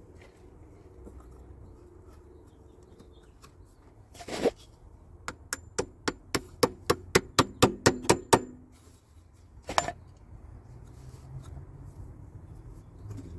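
Hammer blows: a single strike, then a quick run of about a dozen blows at roughly four a second, and one more strike after a short pause.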